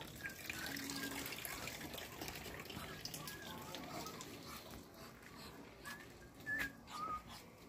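Faint outdoor ambience: a low hiss with scattered short high chirps and peeps from birds, and a few soft clicks. Two slightly louder chirps come near the end.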